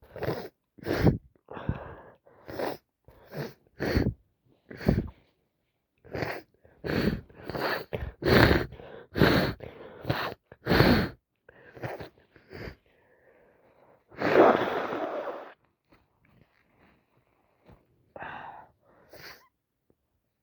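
A person sneezing over and over in a rapid fit during an allergy attack, about one sneeze a second in two runs. About two-thirds of the way through comes a longer, louder burst lasting about a second, then a few fainter sounds near the end.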